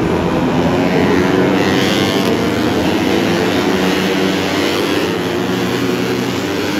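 A pack of 150cc four-stroke underbone racing motorcycles running hard together, several engines overlapping and rising and falling slightly in pitch as they ride through the corners.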